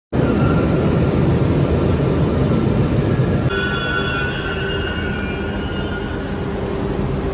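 Paris RER double-deck commuter train running along an underground platform, a loud steady rumble. About three and a half seconds in, a high metallic squeal from the wheels joins it and fades out a couple of seconds later.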